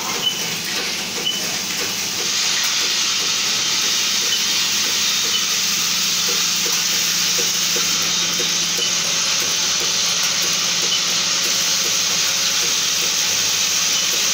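Automatic transformer core-insertion and taping machine running with its vibratory bowl feeders: a steady hissing rattle over a low hum, with faint repeated ticks from the mechanism.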